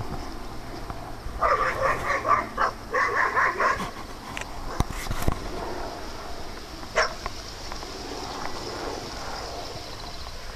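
Dogs barking in a quick run of short barks about one and a half seconds in, followed by a couple of sharp knocks and a brief high cry near the middle.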